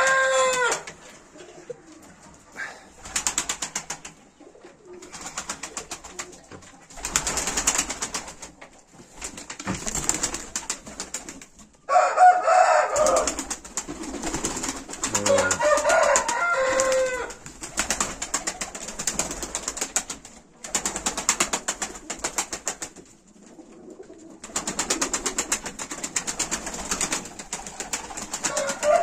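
Domestic pigeons cooing in their loft in repeated bursts a second or two long, with short pauses between them. Two louder calls that bend in pitch come about twelve and sixteen seconds in.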